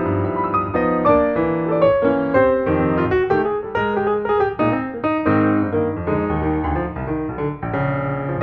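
Background piano music, a flowing run of notes.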